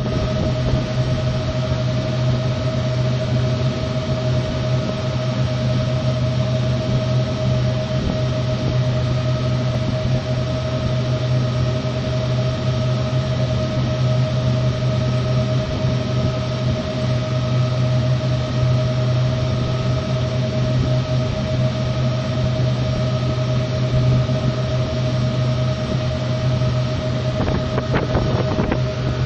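Steady, loud machinery drone: a low hum with a constant mid-pitched whine over it and a fainter higher tone. A few light knocks come near the end.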